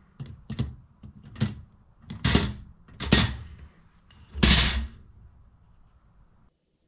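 Fork tines tapping and knocking against the metal of small tart tins as the pastry bases are pricked to stop them bubbling up in blind baking. About eight irregular sharp taps, the loudest and longest about four and a half seconds in.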